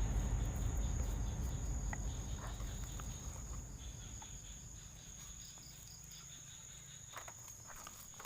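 An insect trilling steadily on one high pitch, over a low rumble that fades away during the first few seconds, with a few faint ticks and rustles.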